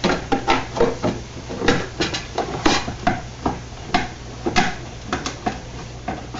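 Plastic turn signal lens of a 1999 Camaro Z28 being worked into its opening in the front bumper: irregular clicks, knocks and scrapes of plastic rubbing against plastic and styrofoam.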